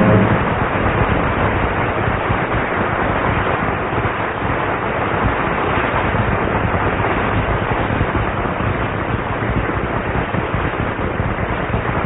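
Studio audience applauding on an old radio broadcast recording. The applause starts as the orchestra's final chord stops and eases off slightly near the end.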